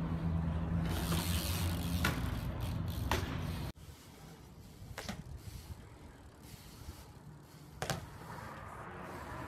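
BMX bike riding on concrete, with sharp knocks of the bike hitting the ground spaced a second or more apart. A steady low hum sits under the first few seconds, and the sound drops suddenly at about four seconds.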